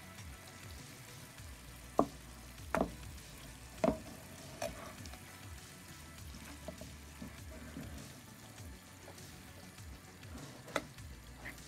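Chicken pieces sizzling on a tawa as they are turned over with a metal spatula. A few sharp clicks and scrapes of the spatula against the pan.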